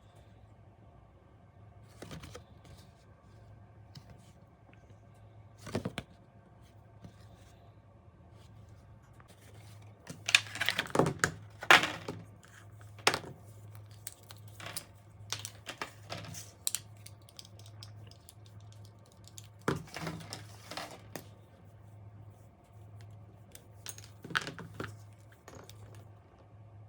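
Packaging and the soldering iron being handled during unboxing: scattered clicks, taps and rustles, with a cluster of louder handling noises about ten to twelve seconds in and more near twenty and twenty-four seconds, over a faint low hum.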